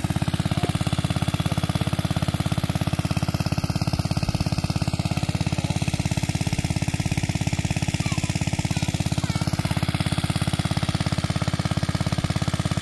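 Small engine-driven water pump running steadily with a fast, even putter, pumping water out of the pond.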